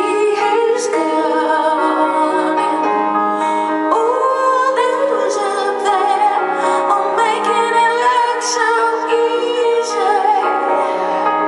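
Live concert recording of a woman singing with instrumental accompaniment: long held notes with vibrato over sustained chords.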